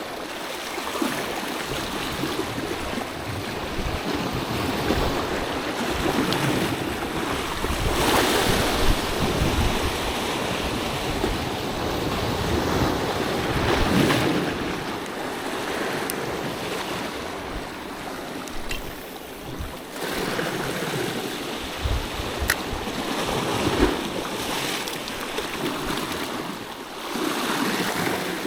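Sea waves washing at the shoreline, a continuous rushing wash that swells and falls every few seconds, with wind buffeting the microphone.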